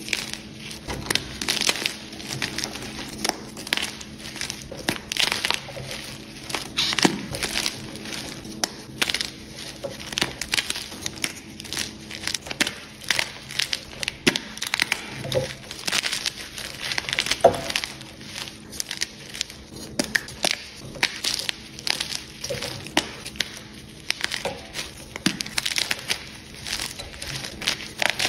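Blocks of Jenny's Choice plain gym chalk being crushed and crumbled by hand: a dense, irregular run of crunches and crackles as the blocks break and the fragments grind together.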